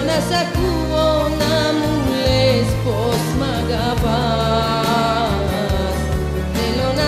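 A woman singing a Greek song, with wavering held notes over instrumental backing with steady sustained bass notes.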